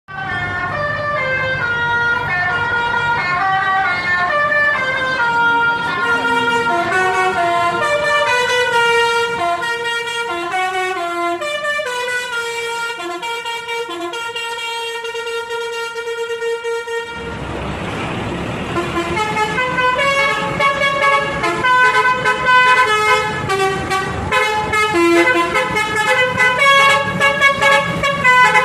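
Bus telolet horn, a multi-tone basuri air horn, playing melodic tunes of quickly changing notes. About seventeen seconds in, the horn pauses for a loud rushing noise before the tunes start again.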